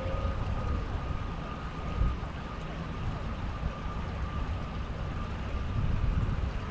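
Gusting wind rumble on the microphone, with a thin, steady high tone that holds one pitch throughout.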